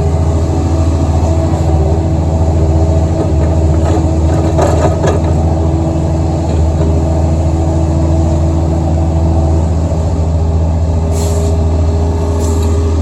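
Excavator diesel engine running steadily at working speed, with a brief rattle about four to five seconds in.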